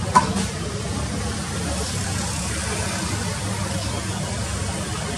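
Steady rumble and hiss of the Rolls-Royce Trent 700 engines on a taxiing Airbus A330-243 at idle thrust. A single sharp click sounds just after the start.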